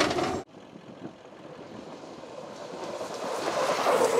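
All-electric off-road race car passing close at speed on desert dirt: a rush of tyre, dirt and chassis noise with no engine note, cut off suddenly about half a second in. After a quieter stretch, a second pass builds up steadily and is cut off suddenly at the very end.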